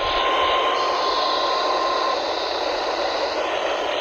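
NOAA Weather Radio receiver hissing with steady static, with a faint steady tone that stops about two seconds in.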